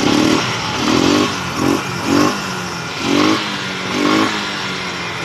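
Motorcycle engine running at a steady idle, with the throttle blipped about six times in short revs.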